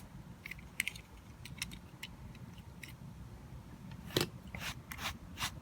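Faint, scattered light clicks and ticks, with one sharper click about four seconds in: small die-cast toy car parts being handled and fitted during a wheel swap.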